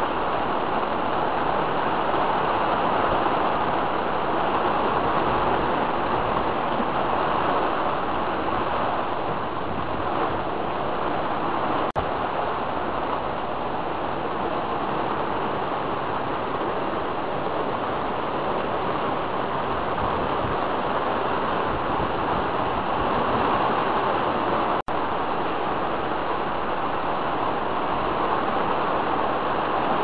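Steady rushing noise of a tropical storm's wind and heavy rain, with two very brief dropouts in the sound.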